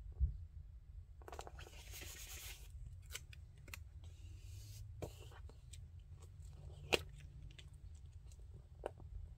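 Paper stickers being handled: a sticker peeled off its backing sheet with a rustling rip lasting about a second and a half, then a shorter, fainter peel. Scattered light clicks and taps follow as sticker pieces are picked up and pressed onto a paper page, the sharpest click near the end. There is a dull thump just at the start.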